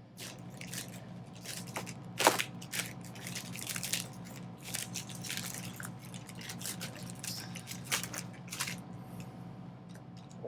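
A dull butterfly knife sawing and prying at packaging, with irregular scrapes, crackles and snaps. The loudest snap comes about two seconds in.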